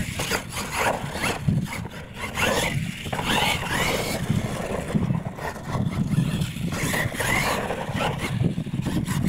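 Radio-controlled monster truck running on a dirt course, its electric motor whining up and down in short rising pulls as it drives, tumbles and lands.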